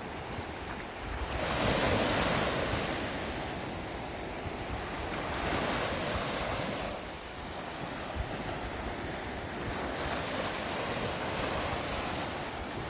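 Sea waves washing in: three swells of surf a few seconds apart, the first the loudest, over steady wind noise on the microphone.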